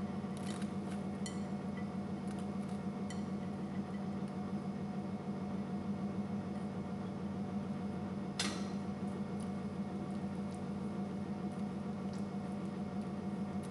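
Light clinks and knocks of a cooking utensil against a pan while fettuccine is added to a pan of cream, with one sharper knock about eight seconds in. A steady low hum runs underneath.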